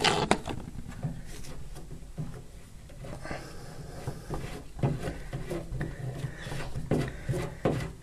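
Scattered clicks, knocks and rubbing as a washing machine's threaded levelling foot and its lock nut are handled and turned by hand.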